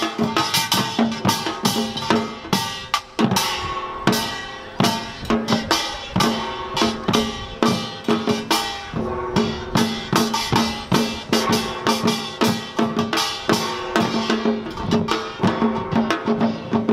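Korean samulnori percussion ensemble, seated Samdo style: janggu hourglass drums, buk barrel drum, jing gong and kkwaenggwari small gongs. They play a fast, dense rhythm of drum strokes under ringing metal gongs, with a brief break about three seconds in before the full ensemble strikes back in.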